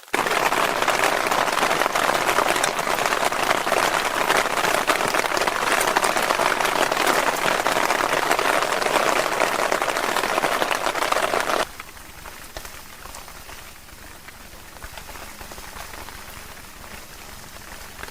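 Heavy rain falling on a surface, a loud dense patter of drops. About two-thirds of the way through it drops suddenly to a much quieter, steady rain hiss.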